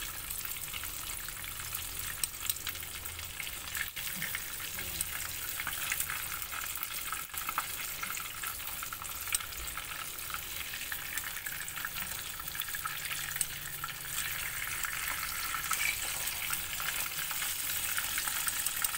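Small tilapia frying in hot oil in a pan: a steady sizzle with many small pops and crackles. The oil is too shallow to cover the fish.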